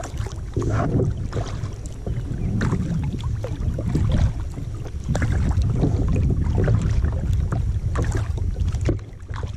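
Kayak paddling: paddle blades dipping and splashing in the water in irregular short splashes, over a steady low rumble of wind buffeting the microphone.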